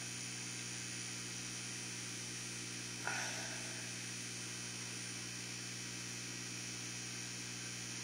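Steady hum and hiss of an aquarium air pump and its bubble curtain. A single short knock comes about three seconds in.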